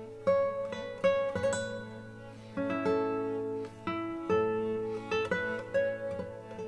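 Background music: a plucked acoustic guitar playing a slow melody of single notes that ring and fade one after another.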